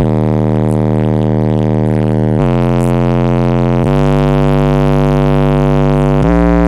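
Bass-heavy rap track played loud through two Pioneer TS-W126M 12-inch car subwoofers on about 800 watts, heard inside the car's cabin: long, buzzy bass notes that step to a new pitch three times.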